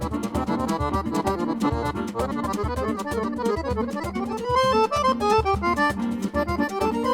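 Accordion playing an instrumental piece: quick melody notes over a regular bass pulse, with a run of notes climbing upward about four seconds in.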